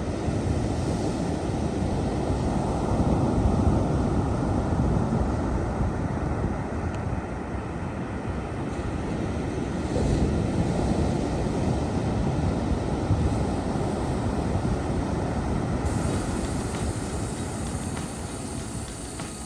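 Wind buffeting the microphone in a steady, uneven rumble, over the rush of ocean surf.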